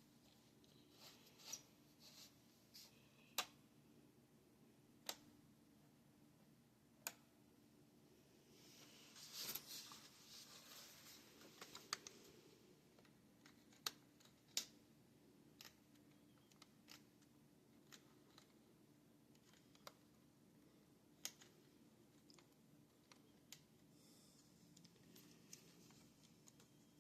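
Near silence broken by scattered faint, sharp clicks, about one every second or two, with a brief rustle of handling noise around nine to eleven seconds in.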